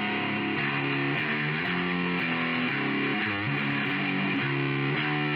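Outro music: distorted electric guitar playing, with chords that change about every half second.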